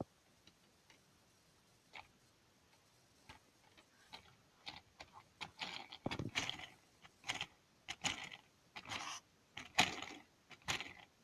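Plastic Lego Technic parts clicking and rattling irregularly as the model is handled and its rear wheels and differential are turned. There are a couple of single clicks at first, then clusters of clicks from about halfway through.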